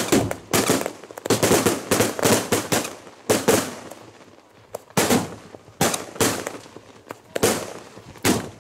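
Firecrackers going off in irregular clusters of sharp bangs, some single cracks and some rapid strings, with short gaps between bursts.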